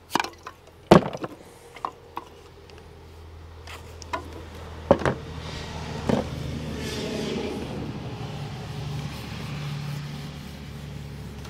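A few sharp clicks and knocks as a metal acetone can and its cap are handled, the loudest about a second in. From about halfway a steady rubbing hiss follows as an acetone-wetted rag wipes the camper's side wall, with a low hum under it.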